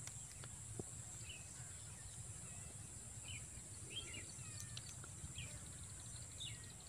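Faint background noise: a steady high-pitched hiss and a low hum, with a few faint, short bird chirps scattered through it.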